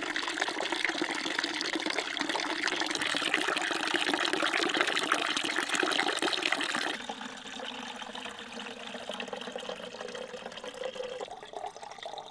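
Spring water running from a metal pipe spout and splashing onto wet wooden boards over a basin. About seven seconds in it cuts suddenly to a quieter, thinner flow.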